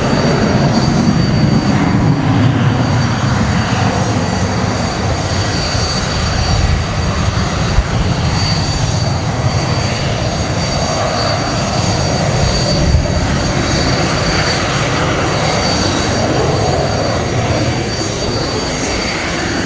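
RAF F-35B Lightning II's Pratt & Whitney F135 engine in afterburner on takeoff and climb-out: a continuous loud jet roar, deepest in the first few seconds and turning harsher and more crackling as the jet climbs away.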